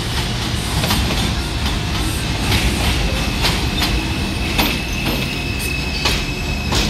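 New York City Subway R142-type train arriving at an elevated station and slowing, its wheels clicking over rail joints over a steady rumble. A high steady whine comes in about halfway through as it brakes.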